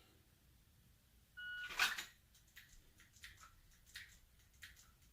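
Shot timer's start beep, a short electronic tone, then a sharp clatter as the Glock 34 is drawn. After that comes a row of light clicks about every 0.7 s as the trigger is pressed dry on each target in turn.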